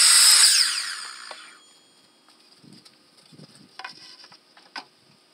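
Ridgid sliding miter saw running, then its blade winding down with a falling whine over about a second after the cut. Later come two short knocks of wood.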